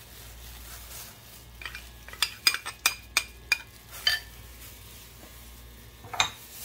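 A metal spoon clinks repeatedly against a cup and a glass bowl while tahini is scraped out of the cup into yogurt. There is a quick run of sharp, ringing clinks over about two seconds, then one more near the end.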